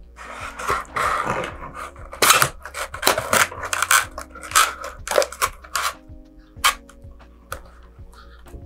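Cardboard fin alignment jig and model rocket body tube being handled, with irregular scraping and rustling knocks as the jig is pressed and adjusted over the glued-in fins. Background music plays under it.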